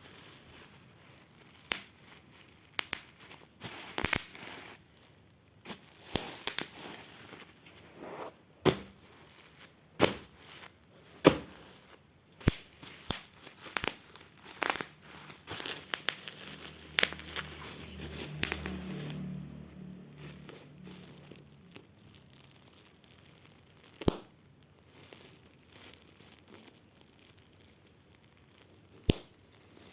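Packaging being handled and unwrapped: plastic and cardboard crinkling and tearing, with scattered sharp clicks and knocks of the part being handled.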